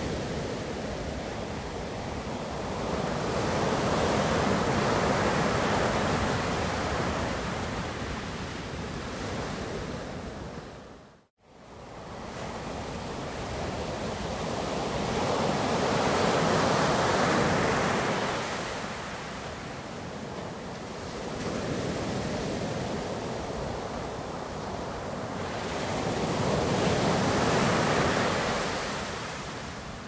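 Ocean waves breaking on a shore: a steady rushing wash that swells and eases every several seconds. About eleven seconds in the sound drops out for a moment and comes back.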